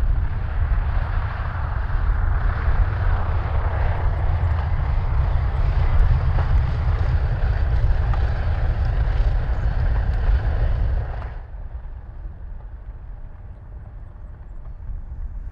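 The two radial piston engines of a B-25 Mitchell bomber running, a loud steady propeller drone. About two thirds of the way through it drops suddenly to a much quieter drone.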